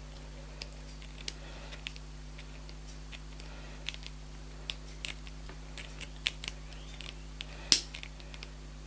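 Small metal precision pliers clicking and scraping against a tiny nut and screw on rimless glasses as the loose nut holding the temple is tightened: irregular light clicks, one louder near the end, over a steady low hum.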